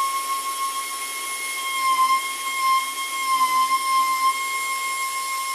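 A power tool running steadily with a high-pitched whine over a hiss.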